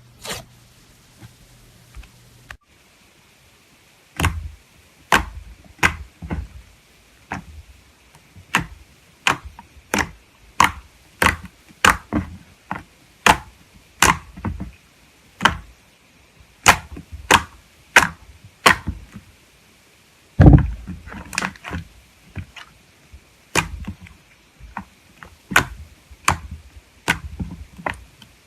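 Slime being pressed and poked, giving a long series of sharp pops and clicks, about one or two a second, after a quieter start. A heavier, deeper pop comes about twenty seconds in.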